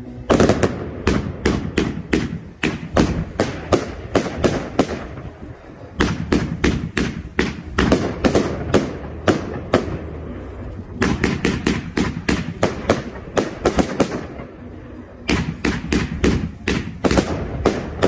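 Aerial fireworks firing in rapid volleys of sharp bangs, several a second, in four runs broken by short pauses.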